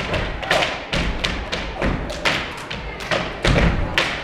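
Step team stomping on a stage floor and striking canes together and on the floor, a string of sharp thuds and taps in an uneven rhythm of about two to three a second, with heavier stomps near the end.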